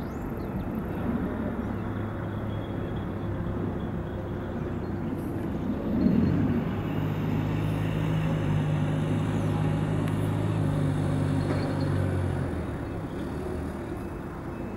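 Low, steady engine hum with a few deep tones, swelling about six seconds in with a brief rise in pitch and easing off again about twelve seconds in.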